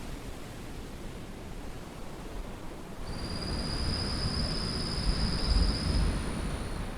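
Sea surf washing on the shore: a steady low rushing that swells to a peak a little past halfway, then eases. About three seconds in, a steady high-pitched whine joins and holds for several seconds.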